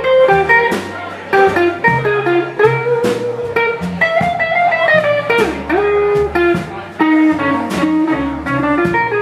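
Live blues band playing: electric guitar, upright bass and drums with a steady beat, and a long held, bending lead line in the middle that fits an amplified blues harmonica played into a cupped microphone.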